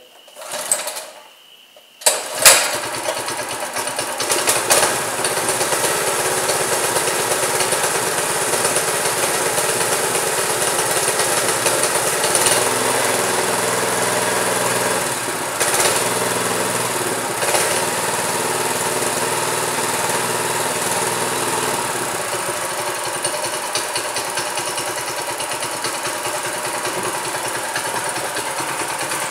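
Mega Moto 212 minibike's 212cc single-cylinder engine pull-started; it catches about two seconds in and then idles steadily while it warms up.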